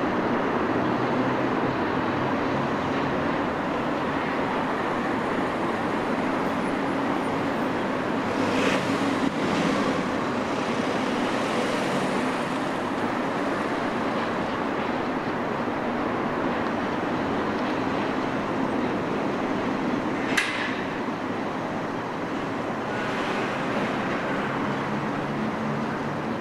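Steady outdoor rumble of distant road traffic and rail activity, with a single sharp knock about twenty seconds in.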